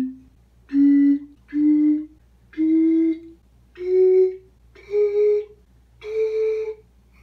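Glass soda bottles partly filled with water, blown across the mouth like a flute: a run of about seven short, breathy hooting notes, each a step higher than the last, making a rising scale. The water level in each bottle sets the pitch of its note.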